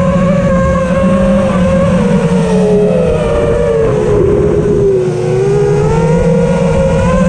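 FPV quadcopter's brushless motors and propellers whining over a steady rumble of prop wash and wind, heard close up from on board. The pitch sags about four seconds in as the throttle eases, then climbs back.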